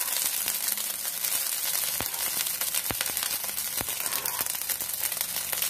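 Cooked rice frying in a nonstick pan, a steady sizzle with a few sharp clicks of the spatula against the pan as it is stirred.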